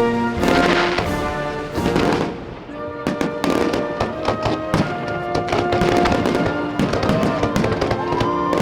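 Aerial fireworks bursting and crackling over music, with the crackles coming thick and fast from about three seconds in.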